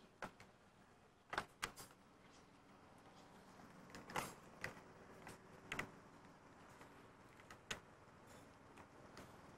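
Near silence broken by a scattering of short, sharp clicks and knocks. The loudest come about a second and a half in and about four seconds in.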